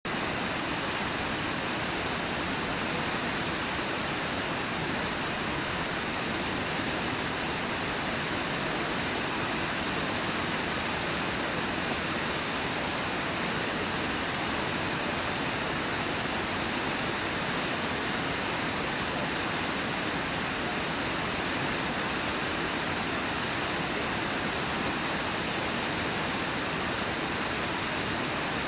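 Steady, unbroken rush of Brooks Falls, whitewater pouring over the rock lip of the waterfall.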